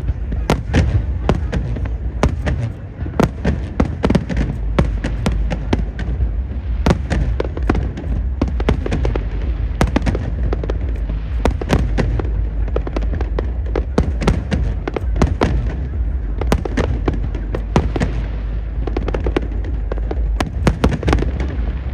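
Aerial fireworks exploding in quick irregular succession, several sharp bangs a second over a continuous low rumble, with crowd voices underneath.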